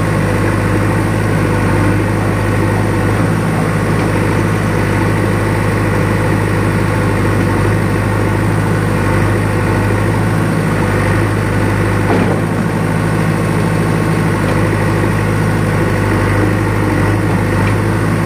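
JCB 3DX backhoe loader's diesel engine running steadily at a constant speed, with a brief knock about twelve seconds in.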